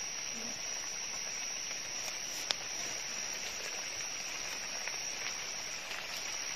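Steady high-pitched drone of forest insects over a soft hiss, with one sharp click about two and a half seconds in and a few fainter ticks from movement through dry leaf litter.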